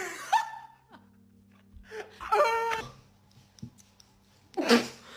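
A person's voice making wordless wailing, moaning sounds in three short outbursts: a brief one near the start, a longer one about two seconds in and a short falling one near the end.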